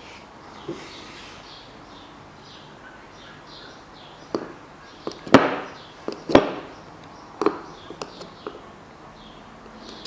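Scattered sharp clicks and knocks of metal parts and tools being handled during tie rod end work. They start about four seconds in, with two louder knocks in the middle.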